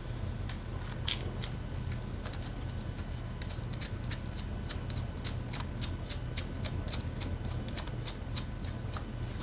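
A series of short, sharp clicks, scattered at first and then an even run of about two to three a second, over a steady low hum.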